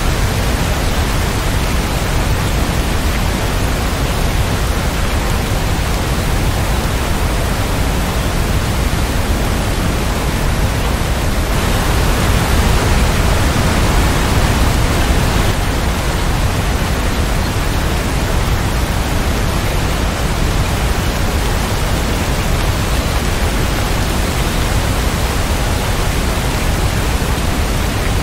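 Steady, dense rain: an even hiss with no drops or thunder standing out, swelling slightly for a few seconds around the middle.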